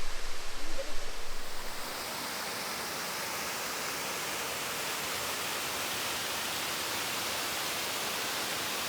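Tall waterfall's falling water, a steady even rushing hiss. For about the first two seconds a low uneven rumble sits under it, then the rush settles to a constant level.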